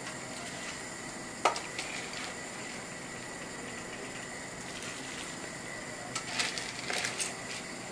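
A nylon ladle taps against stainless steel cookware as soaked hulled wheat is spooned into a pot of simmering chicken broth. There is one sharp tap about a second and a half in, then a quick cluster of taps and small splashes near the end, over a steady hiss.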